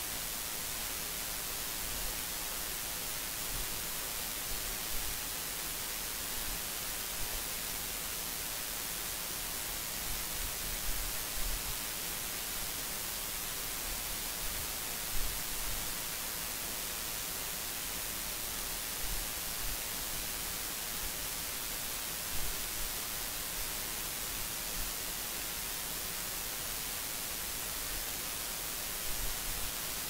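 Steady hiss of recording static, strongest in the high frequencies, with a few brief faint thumps.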